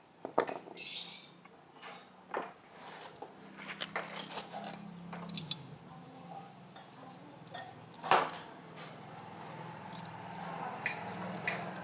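Scattered light metallic clicks and taps from the parts of a disassembled scooter starter motor being handled, with one sharper knock about eight seconds in, over a faint steady low hum.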